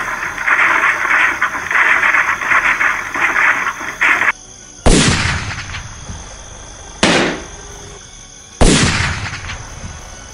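A loud, harsh fluttering noise that cuts off about four seconds in, followed by three sudden loud bangs, each fading away, like cartoon gunshot or explosion sound effects.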